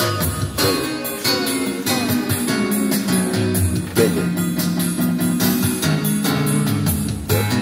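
Electronic keyboard played: a melody over low bass notes, with a few notes sliding in pitch.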